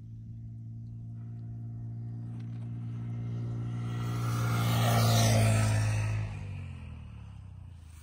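A motor vehicle's engine passing by, growing louder to a peak about five seconds in, then dropping a little in pitch and fading away.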